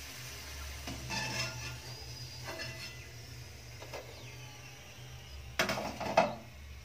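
Steel spoon scraping and clinking against a steel kadhai as fried potato sticks are lifted out of the oil. Several short clinks come in the first four seconds. A louder clatter of steel dishware comes about five and a half seconds in, over a low steady hum.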